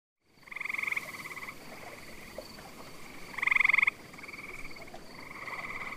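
Frogs calling in pulsed trills: three trills, the loudest about three and a half seconds in, over a faint steady high-pitched tone.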